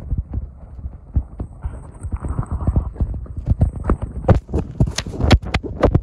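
Footsteps crunching through snow, a few steps a second, sharper and louder in the last two seconds, over wind buffeting the microphone.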